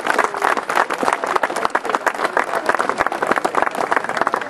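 An audience applauding, with dense, steady clapping.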